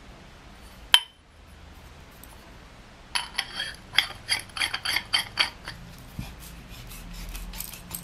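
Aluminium tube sections of a survival stick knocking and being screwed together: one sharp metallic click about a second in, then a quick run of light metallic clicks and clinks for a couple of seconds.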